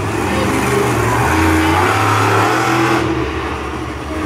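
Monster truck's big engine running hard, its revs stepping up and easing off several times as the truck makes its run.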